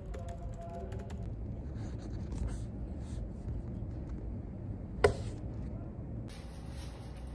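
Brief laptop-keyboard typing, then a steady low room rumble with scattered light clicks and one sharp click about five seconds in.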